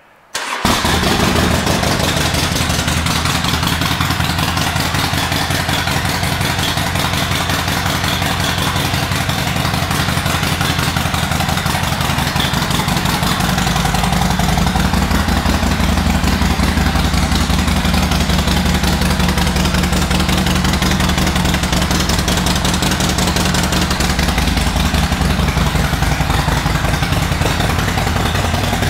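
A 2007 Harley-Davidson Sportster XL1200C's air-cooled 1200 cc V-twin starts about half a second in and runs steadily through aftermarket exhaust pipes. Its low rumble grows stronger about halfway through.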